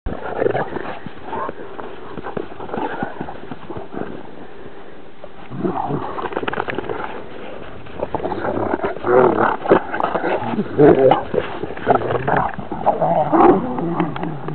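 A Transylvanian hound and a bloodhound growling as they play-fight. The growls come in short rough bursts, thicker and louder from about halfway on.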